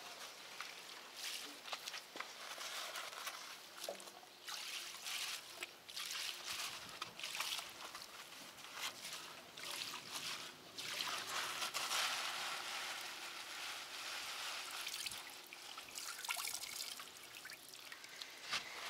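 Bitumen-and-petrol tar solution trickling and dripping off fishing net back into a pail as the net is dipped and lifted, uneven and splashy throughout.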